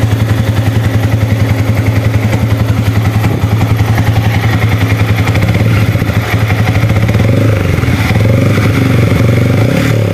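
Yamaha 155 cc single-cylinder motorcycle engine running at idle through a Yamaha R25 slip-on silencer with its round catalytic converter inside, a steady pulsing exhaust note that evens out slightly in the second half.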